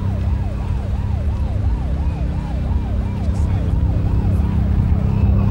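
Police car siren on a fast yelp, rising and falling about three times a second, over a deep steady rumble.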